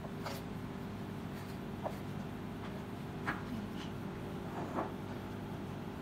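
A knife tapping on a plastic cutting board about five times, with the soft handling of blanched cabbage leaves, over a steady low hum.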